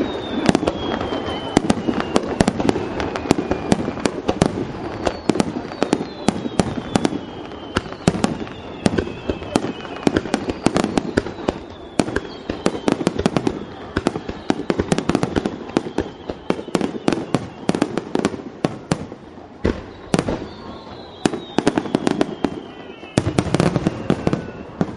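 Aerial fireworks display: a dense, continuous barrage of bangs and crackles from bursting shells, with several whistles falling in pitch running through it.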